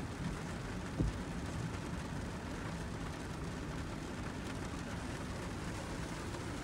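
Heavy rain pattering on a car's roof and windshield, heard from inside the cabin, over a low steady hum from the car. A single thump about a second in.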